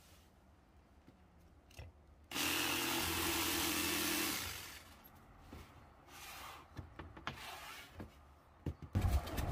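Ryobi cordless jigsaw cutting through MDF for about two seconds, starting a couple of seconds in and then winding down, finishing the corner of a hatch opening that was first cut with a track saw. A few light knocks and clicks follow.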